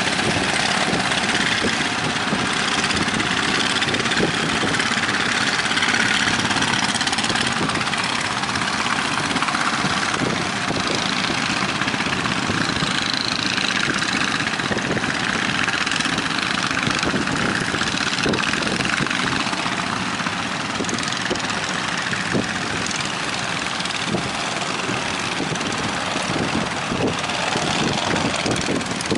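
A boat's engine running at sea under strong wind and waves: a steady, loud, noisy rush.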